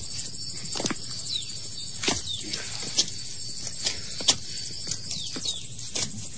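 Footsteps going down stone steps, a knock about every second, over a steady high chirping of crickets, with a few short falling chirps.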